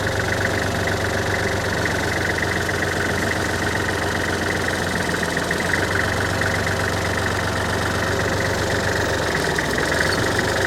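Backhoe's diesel engine running steadily while the bucket is worked down into the hole.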